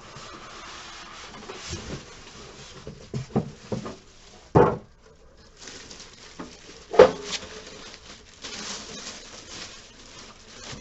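Handling of a cash-drawer box and its packing: rustling with scattered knocks, and two loud thumps about four and a half and seven seconds in.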